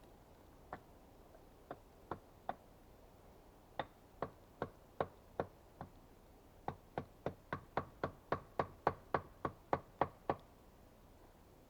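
A hand tool striking wood in a run of about two dozen sharp knocks. They come in scattered groups at first, then speed up into an even run of about three to four strikes a second that stops about a second before the end.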